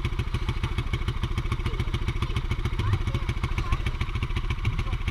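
Small engine of an off-road vehicle towing a wheeled seat, running steadily at low speed with a rapid, even putter. Now and then there is a low knock from the rig rolling over the dirt track.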